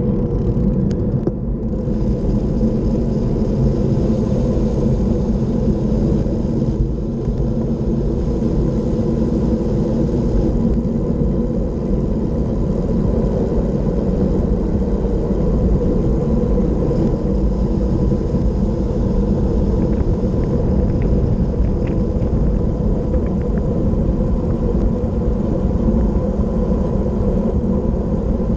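Wind rushing over the microphone of a camera mounted on a road bike descending at speed: a steady, loud low rumble.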